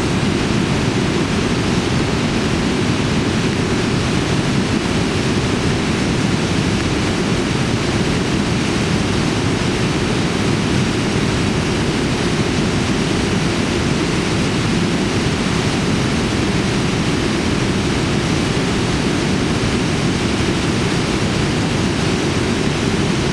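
Waterfall's falling water rushing in a loud, steady, unbroken wash of noise, heaviest in the low range.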